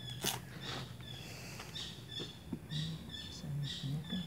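Birds chirping, short high calls repeating every half second or so, with a sharp click about a quarter second in.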